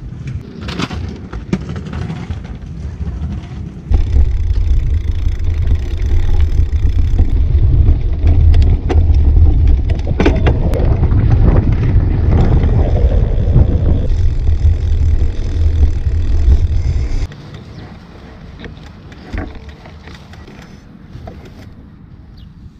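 Wind buffeting the microphone of a handlebar-mounted camera as a Rockrider mountain bike is ridden along a dirt path, with tyre rumble and scattered knocks from bumps. The loud rush starts suddenly about four seconds in and drops away suddenly about seventeen seconds in, leaving a quieter background.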